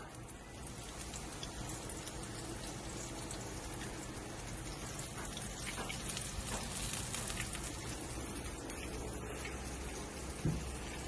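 Coated chicken strips frying in hot oil in a pan: a steady sizzle full of fine crackles. A soft knock near the end.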